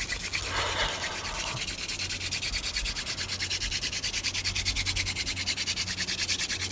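Hand-drill friction fire: a mullein spindle spun back and forth between the palms, grinding into a notched white pine hearth board in fast, even, scratchy strokes. The spindle is building up hot wood dust in the notch, with smoke already rising, toward an ember.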